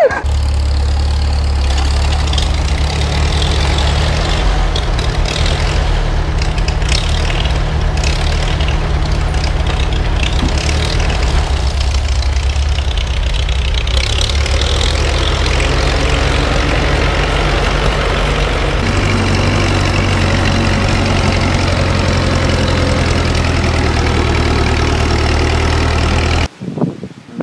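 Old farm tractor engines running steadily, a loud low engine note that shifts in character about halfway through as a second tractor takes over. The sound cuts off abruptly shortly before the end.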